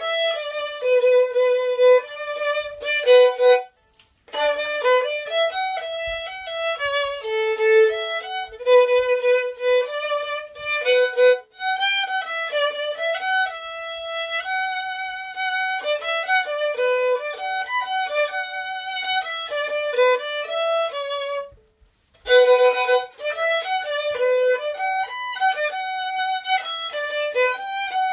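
Solo violin playing a melody, with two brief breaks, about four seconds in and about twenty-two seconds in.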